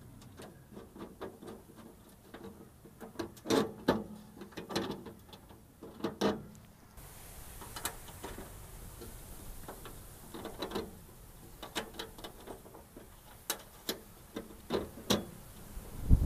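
Irregular small metal clicks and light knocks as nuts and bolts are threaded by hand through a bike fork mount into an aluminium ute tray.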